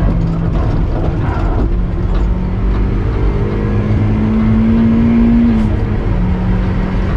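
Turbocharged Mazda MX-5 engine under load at speed. Its note climbs steadily for about two seconds, drops sharply at an upshift about five and a half seconds in, then pulls on, over a heavy rush of road noise.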